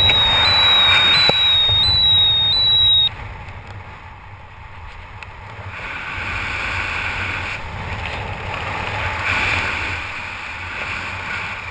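Wind rushing over a skydiver's helmet-camera microphone under an open parachute, swelling and fading. For the first three seconds a loud, high electronic tone sounds over it, then cuts off suddenly.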